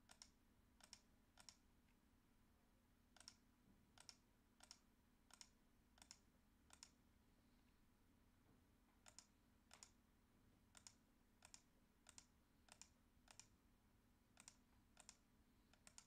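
Faint computer mouse button clicks: about twenty single clicks in irregular runs of a few a second, with a pause of about two seconds near the middle. A faint steady hum lies underneath.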